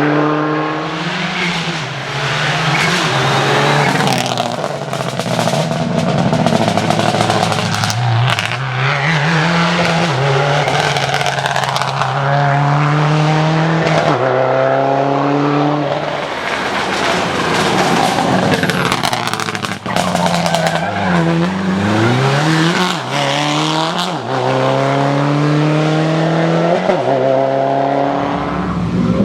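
Subaru Impreza rally cars' turbocharged flat-four engines revving hard through the gears. The pitch climbs and drops back again and again with each upshift, and the sound is loud throughout.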